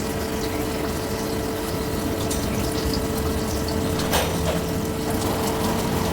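CNC lathe running with its coolant pump on and coolant flowing: a steady hum with a constant tone, and one sharp click about four seconds in.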